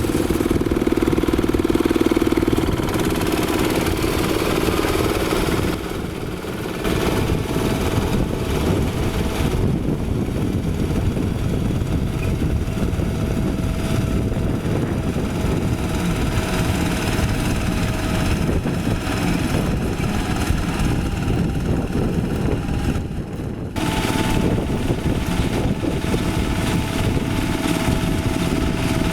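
Quick H-140R light rice harvester's diesel engine running steadily as the machine works, with a faint steady whine over it; the sound drops briefly twice, about six seconds in and again near the end.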